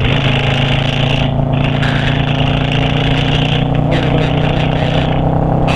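V-twin cruiser motorcycle running steadily at cruising speed, with heavy wind rushing over the microphone.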